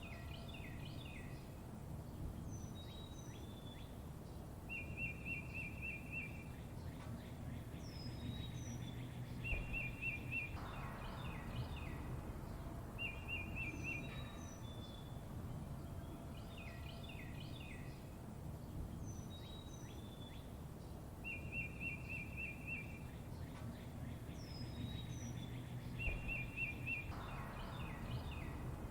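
Wild birds singing: a fast run of evenly repeated notes comes back every few seconds, among short high chirps, over a steady low outdoor rumble.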